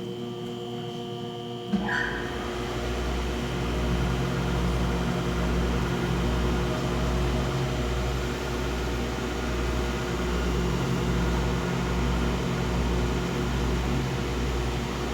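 Clausing Equiptop grinder under power: a steady electrical hum, then a click about two seconds in as a motor starts. The machine then runs steadily with a low pulsing about once a second.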